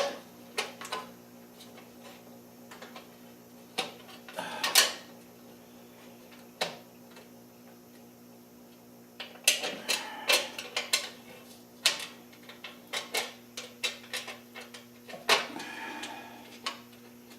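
Scattered metal clicks and clinks of bolts and nuts being handled and started on by hand while fitting a fender, busiest in the second half, over a steady low hum.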